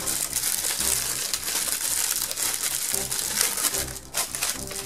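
Clear plastic packaging bag crinkling and rustling as it is handled and crumpled, with a short lull about four seconds in.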